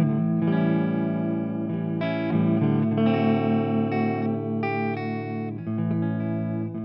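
Stanford Fleetwood CR electric guitar played through effects, sustained chords ringing and changing every second or so, with a steady wavering pulse in the tone.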